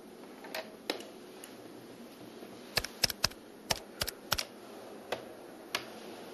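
Desk telephone: a couple of clicks as the handset is lifted from its cradle, then from about three seconds in a quick, uneven run of about ten sharp clicks as keypad buttons are pressed to dial a number.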